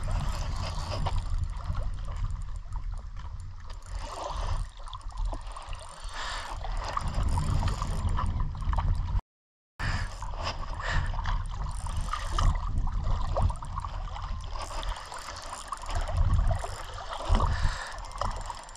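Water gurgling and sloshing over a low, uneven rumble. The sound cuts out completely for about half a second partway through.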